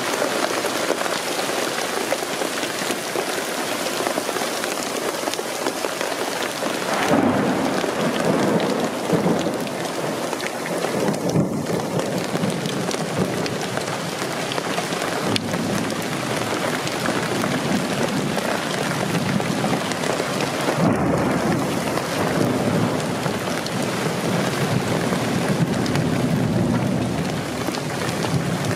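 Hail and rain pelting a flat roof: a dense, steady clatter of many small impacts that swells louder about seven seconds in, with thunder rumbling in the storm.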